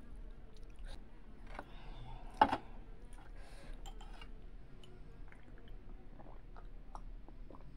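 Close-miked eating sounds: soft chewing and small mouth clicks, with one sharp knock about two and a half seconds in. Near the end come sips and swallows from a glass of drink.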